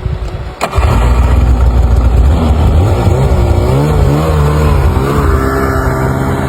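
An engine running loudly and steadily, starting abruptly after a click about half a second in, its pitch wavering slightly.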